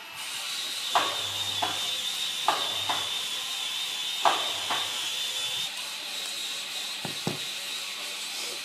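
Four pairs of short knocks on wood as fibrous insulation is packed into the gap between a log beam and a log post, with a steady high whine underneath that stops about two-thirds of the way through.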